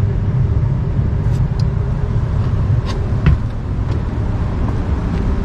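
Steady low machinery hum with a few faint light clicks.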